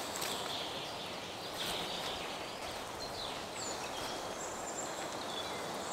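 Woodland birds giving short, high chirps here and there against a steady outdoor background hiss, with soft rustling of fabric being handled near the start.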